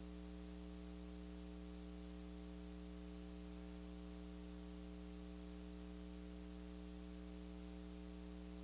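Steady low electrical mains hum with higher overtones and a faint hiss, unchanging throughout.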